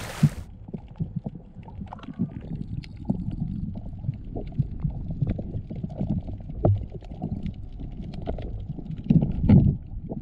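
Muffled underwater sound from a submerged action camera: a low rumble of water with scattered clicks and pops, and a few louder low thumps near the end. The splashy surface noise cuts off about half a second in as the camera goes under.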